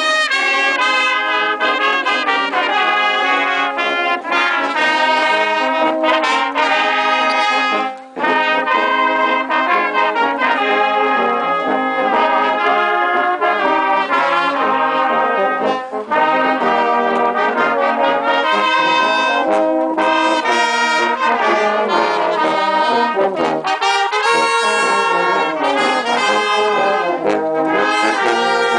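Brass band playing a tune together, with trumpet and tubas among the instruments. There is a brief pause about eight seconds in.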